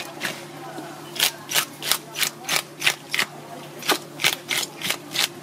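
Hand fish scaler scraping the large scales off a parrotfish in quick strokes, about three a second, the scales rasping and flicking off. The strokes pause for about a second near the start.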